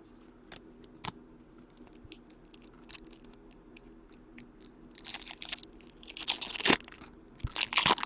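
A hockey card pack wrapper being torn open and crinkled, in crackling bursts that start about five seconds in. Before that, light clicks of cards being handled.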